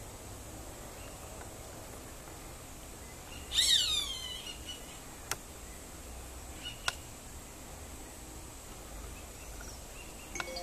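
Roadside hawk giving one loud, falling scream about three and a half seconds in, with two short clicks a few seconds later.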